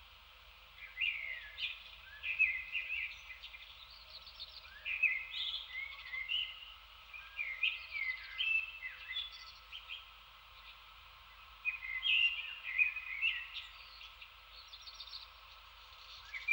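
Wild songbird singing, with short song phrases repeated every few seconds.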